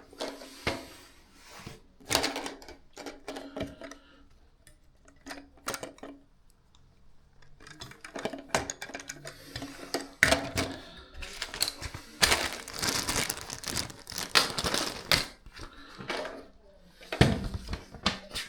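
Small toilet-repair parts being handled: scattered clicks, taps and rustling, thickest about twelve to fifteen seconds in and again near the end.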